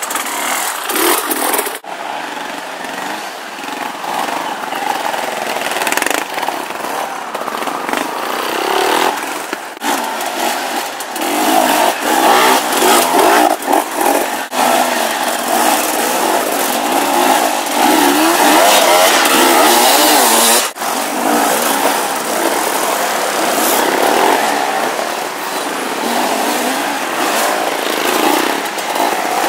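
Off-road motorcycles (enduro and trials bikes) revving, the engine note rising and falling again and again. Several bikes pass in turn, and the sound drops out sharply a few times.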